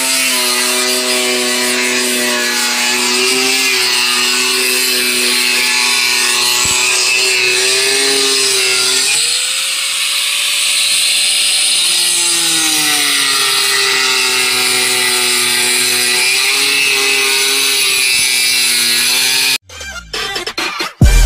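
Angle grinder with a sanding disc running against the wooden boat hull, a steady motor whine whose pitch sags and recovers as the disc is pressed and eased off, with a dip and rise about nine seconds in. It cuts off abruptly near the end, followed by brief electronic swishes and clicks.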